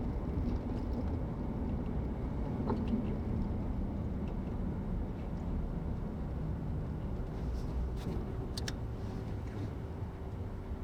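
Steady low road and engine noise of a car driving on the highway, with a few faint clicks about eight seconds in.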